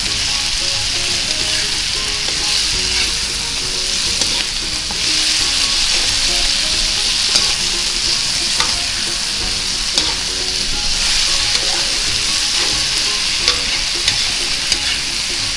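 Kimchi and sliced beef sausage sizzling in hot oil in a nonstick wok while a metal slotted spatula stirs and scrapes through them, with a few sharp clicks of the spatula against the pan in the second half. The kimchi is being fried down until dry.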